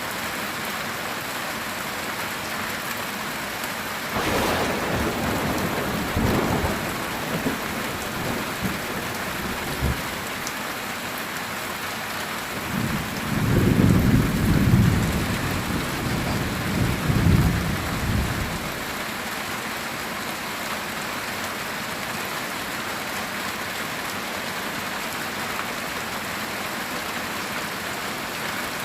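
Heavy rain drumming steadily on a metal tin roof. A thunderclap cracks about four seconds in and rumbles on for several seconds, and a louder, deep roll of thunder follows about halfway through before dying away.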